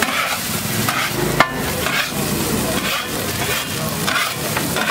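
Egg fried rice sizzling on a large flat griddle while a metal spatula scrapes and turns it, with one sharp clank of the spatula on the griddle about a second and a half in.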